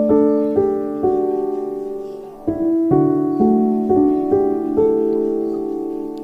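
Background piano music: gentle notes and chords struck about twice a second and left to fade, with a brief pause about two and a half seconds in.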